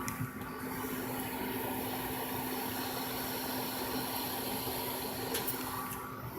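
Monoprice 3D printer's cooling fans whirring steadily with a constant hum while the hotend heats up, with a faint tick now and then.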